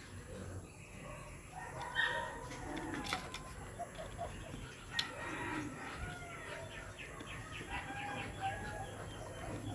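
Birds calling over and over, short curved calls, with a few sharp clicks, the loudest about two and five seconds in, from a screwdriver working the small screws of a plastic cassette shell.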